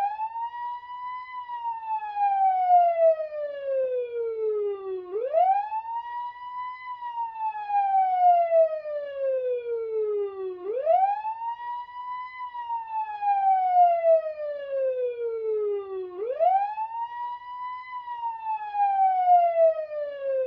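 Fire engine siren wailing in long cycles: each cycle sweeps quickly up in pitch, then glides slowly down over about four seconds before rising again, about every five and a half seconds.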